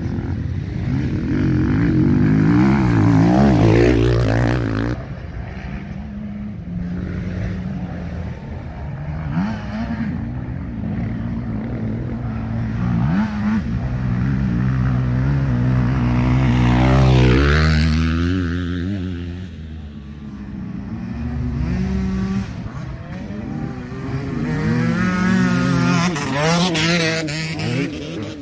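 Dirt bikes ride a motocross track, their engines revving up and dropping back through the gears. Bikes pass loudest at about 4 seconds, 17 seconds and 27 seconds in.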